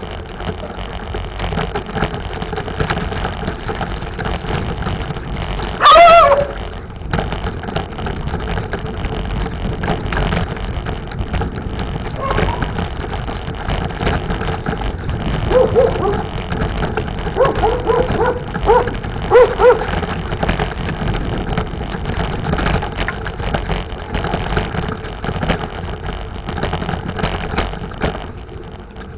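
Steady wind and rolling noise while riding a bicycle. A dog barks: one loud bark that drops in pitch about six seconds in, then a run of short barks around the middle.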